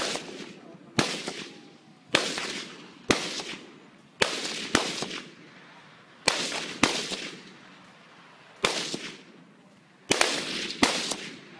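AK-47 rifle firing about eleven single shots, mostly a second or so apart with a few longer pauses. Each shot trails off in an echo.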